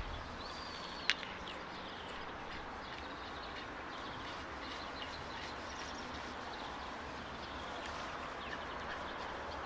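Quiet outdoor ambience with birds chirping now and then over a steady background hiss. There is one sharp click about a second in.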